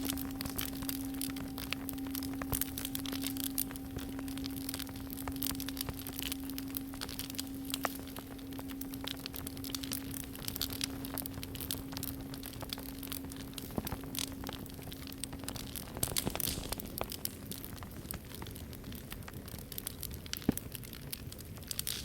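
A singing bowl rings on in one steady low tone, with a fainter higher overtone that fades first, then dies away about three-quarters of the way through. Under and after it a campfire crackles and pops steadily.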